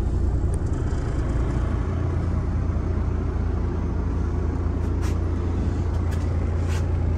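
Steady low mechanical hum of machinery running aboard the boat, heard inside a cabin, with a few faint clicks.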